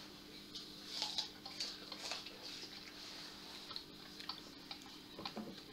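Faint small clicks and scrapes of hands fitting a 9 V battery into a DT830B multimeter and handling its plastic case, a little busier about a second in.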